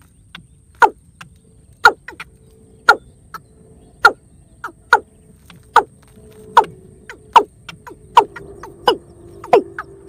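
Watercock calls: loud, short notes that each slide down in pitch, repeated about once a second and coming a little faster near the end.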